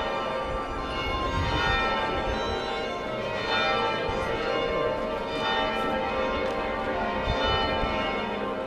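Church bells ringing continuously, several bells sounding over one another.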